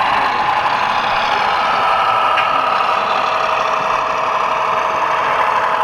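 Model diesel locomotive, a Freightliner Class 70 in OO gauge, running slowly with its sound decoder playing a steady diesel engine note through the model's small speaker.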